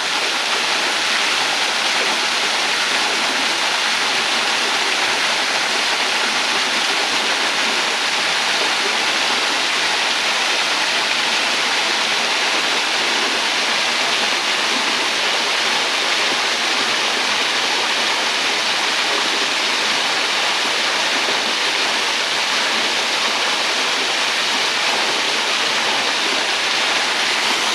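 Waterfall splashing over rocks in a steady, unbroken rush of falling water.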